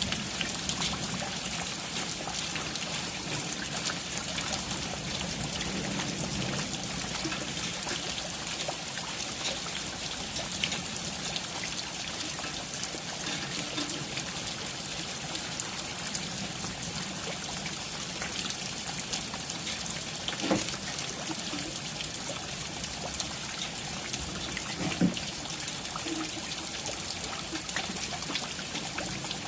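Steady rain falling, with a constant hiss of water and many small drop hits, and two louder single drips about twenty and twenty-five seconds in.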